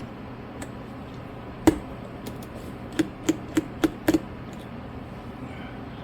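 Small metal clicks and taps from a precision screwdriver and tiny screws against a hard work surface: one sharp click near two seconds in, then a quick run of five clicks a little later.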